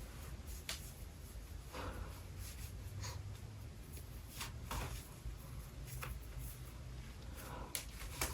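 Scattered light clicks and rustles, like objects being handled, over a low steady hum, with a sharper click near the end.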